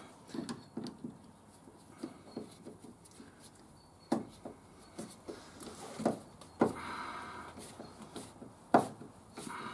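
Screwdriver tightening the hose clip on the fuel line at a diesel fuel filter head: irregular light metal clicks and scrapes, with a few sharper knocks in the second half as the tool shifts against the fittings.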